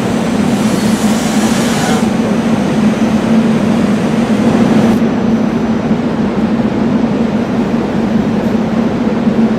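SEPTA Silverliner electric multiple-unit train close by at the platform, running with a steady loud hum on one low tone under a broad rushing noise. The high hiss thins about two seconds in and drops away further about five seconds in.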